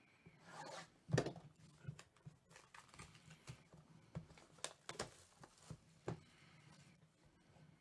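Faint handling noise of a trading-card hobby box and a plastic-cased card: a brief rustle, then scattered light clicks and knocks from fingers tapping and shifting them, the sharpest about a second in.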